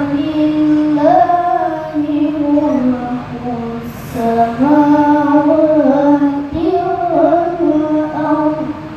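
A boy's voice reciting the Quran in the melodic tilawah style, drawing out long notes that step up and down in pitch, in two phrases with a brief pause about four seconds in.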